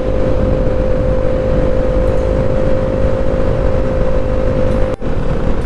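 Motorcycle engine running at a steady pitch while cruising on the highway, with wind rushing over the microphone. The sound drops out briefly near the end.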